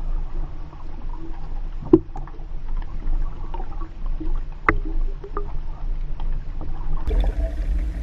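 Underwater water noise heard through a GoPro's waterproof housing as it is towed behind a kayak: a steady muffled low rumble of water rushing past, with a few sharp knocks, the loudest about two seconds in and another near five seconds. The rumble gets louder in the last second.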